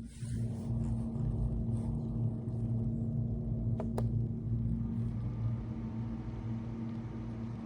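Electric fan running with a steady low hum. Two faint ticks come about four seconds in.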